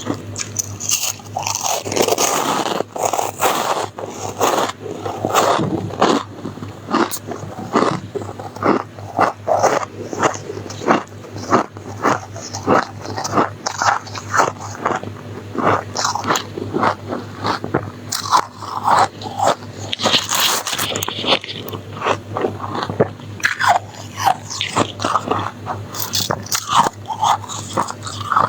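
Close-miked biting and chewing of soft, snowy freezer-frost ice: dense, irregular crunches one after another, with a short hissy scrape about two-thirds of the way through.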